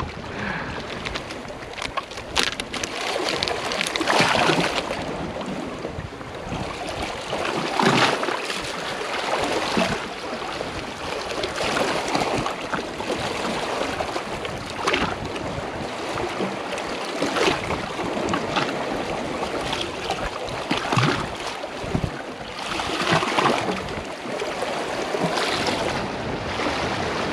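Sea swell washing over and against rocks, surging and falling back every few seconds, with a few short clicks in between.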